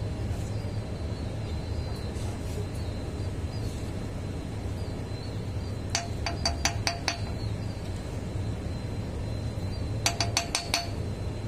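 Steel parts of a forklift roll clamp's rotary unit clinking as they are handled: a quick run of five or six light metallic clinks, each with a short ring, about six seconds in and again near the end, over a steady low hum.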